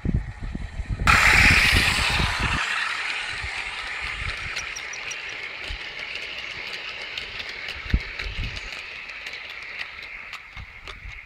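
OO gauge model freight train's hopper wagons rolling past close by on the rails: a hiss that starts suddenly about a second in and slowly fades, with many small clicks of wheels over the rail joints.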